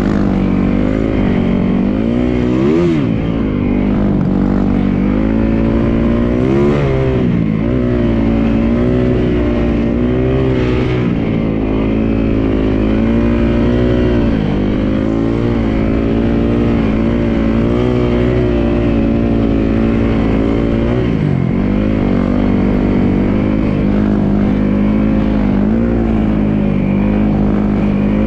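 Snowmobile engine running steadily under load. Its pitch dips and climbs back briefly a few times as the throttle changes.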